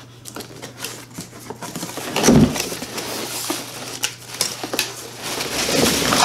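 Cardboard box being opened by hand: flaps scraping and clicking, with a dull thump about two seconds in. Near the end, a plastic bag crinkles as the saw inside it is slid out of the box.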